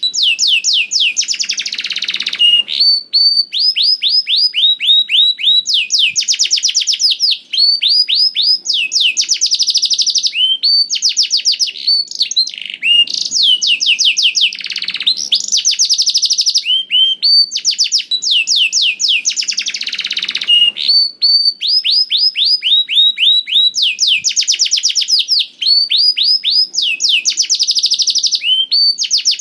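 Domestic canary singing non-stop (gacor): long, rapid trills of quick sweeping notes, one phrase running straight into the next, with similar dense phrases coming back every few seconds.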